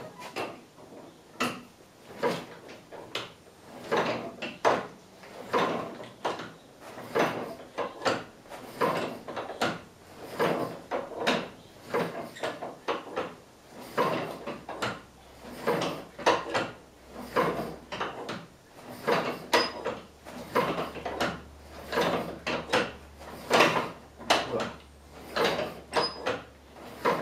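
A vintage car's engine being turned over by its hand starting crank, a steady run of clunks about one and a half a second, without the engine catching. The ignition has been set less retarded to try to cure its hard starting, and it is still hard to start.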